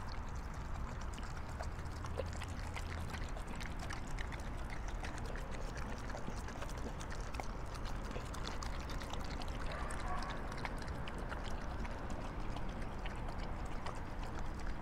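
Two pit bulls lapping and licking a soft, wet breakfast of sour cream, cottage cheese and kefir from their bowls: a steady run of small wet clicks and slurps.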